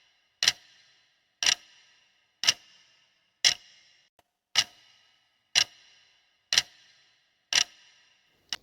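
Clock ticking about once a second, each tick sharp with a short ring: the countdown timer for a quiz question's answer time.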